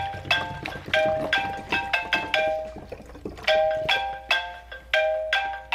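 Smartphone ringtone for an incoming call: a melody of short, bell-like notes that breaks off about two and a half seconds in and starts its phrase again a second later.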